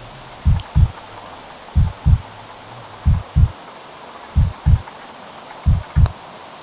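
Heartbeat sound effect: slow paired low thumps in a lub-dub pattern, about one pair every 1.3 seconds, five pairs in all over a faint steady hiss, stopping near the end.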